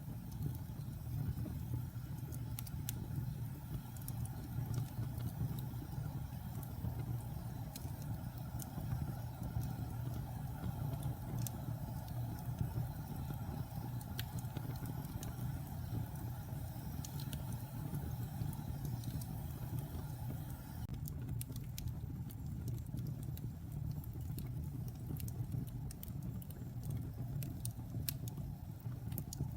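Fire burning: a steady low rumble with scattered sharp crackles and pops, which come more often in the last third.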